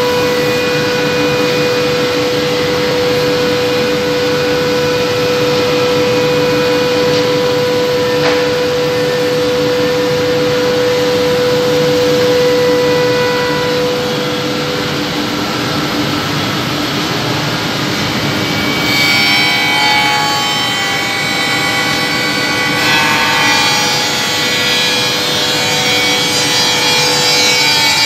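CNC sanding machine for wooden chair legs running, a continuous hum with the rasp of sanding heads on wood; about two-thirds of the way in the sound shifts to a changing set of higher tones as the heads work the piece.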